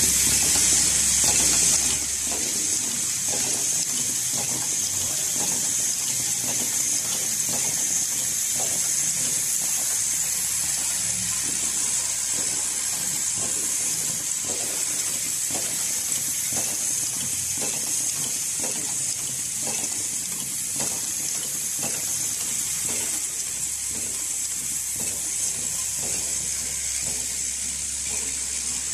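Automatic pencil-sharpener assembly machine with vibratory bowl feeders running: a steady high hiss with regular clicking, about one to two clicks a second, from its mechanisms.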